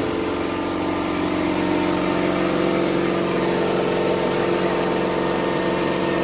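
Vapor blasting machine running: a steady motor-and-pump hum under the continuous hiss of the spray.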